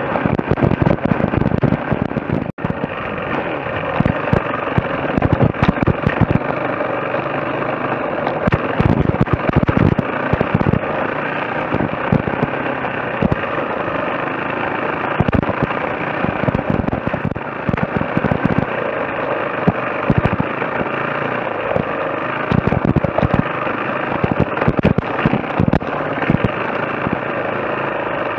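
Off-road trail motorcycle engine running along a rough dirt track in uneven bursts of throttle, with many sharp pops and knocks. The sound cuts out for an instant about two and a half seconds in.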